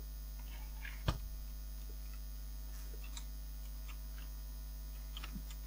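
Steady low electrical mains hum, with one sharp click about a second in and a few faint ticks later.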